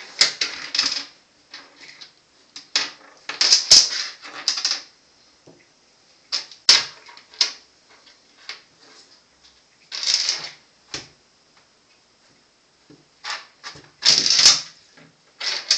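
A bottle cap clicking and skittering across a bathtub floor as a kitten bats it, in irregular bursts of rattling taps with short quiet pauses between.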